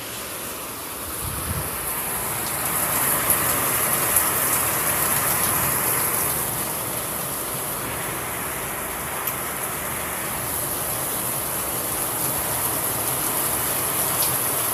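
Heavy rain pouring down in a steady, even hiss that grows louder about two seconds in.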